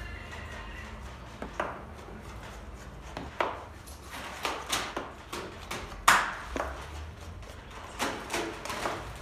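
Large knife cutting across a tray of unbaked layered baklava pastry into squares: a series of irregular sharp taps and scrapes as the blade goes through the dough and strikes the metal tray, the loudest about six seconds in. A steady low hum runs underneath.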